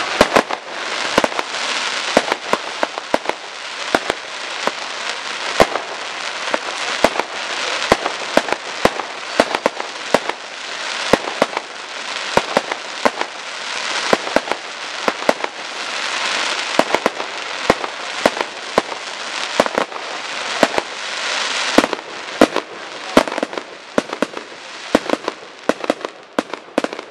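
Fireworks display: a fast, irregular string of sharp bangs from bursting shells over a steady crackle.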